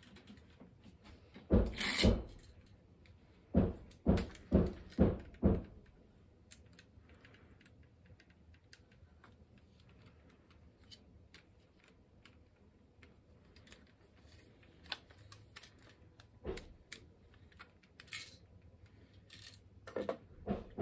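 Plastic clacks from a LEGO-built submachine gun's mechanism and its LEGO tripod mount being worked by hand: two sharp clacks, then five in a row about half a second apart, then lighter clicks and rattles as the gun is moved on the mount, with a few more clacks near the end.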